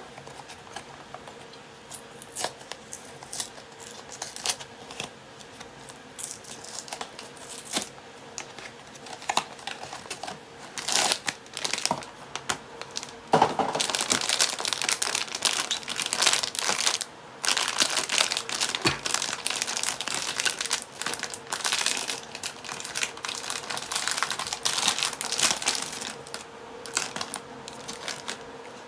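A small cardboard blind box handled in the hands gives scattered clicks and scrapes. About halfway through, a foil bag is torn open and unwrapped, with a loud, continuous crinkling and tearing that keeps going, with a short pause, almost to the end.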